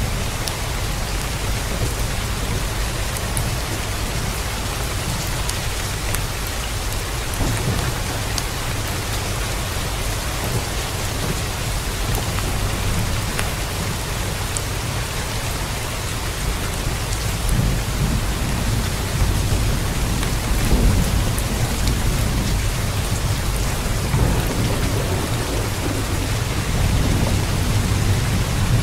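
Heavy rain falling steadily, a dense hiss of drops, with a deep low rumble underneath that grows stronger in the second half.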